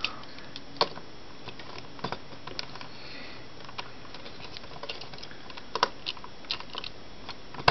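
Plastic clicks and ticks from a Transformers Car Robots Build Cane (Robots in Disguise Grimlock) figure as its joints and parts are moved and handled: scattered sharp clicks, a few louder ones around six seconds in.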